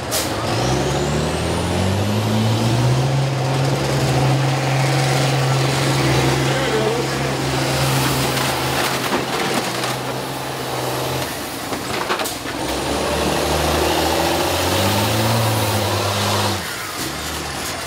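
School bus engines in a demolition derby, one revving up over the first couple of seconds and held at high revs for several more before dropping off, then revving again near the end. A sharp crash of a collision about twelve seconds in.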